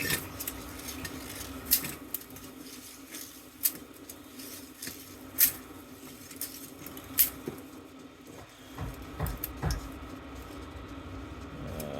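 Sharp metallic clicks and light clinks, about one every two seconds, as a small die-cast piece is worked out of a vintage fire-alarm bell's metal housing, over a steady low hum. A few dull thumps come about three quarters of the way in.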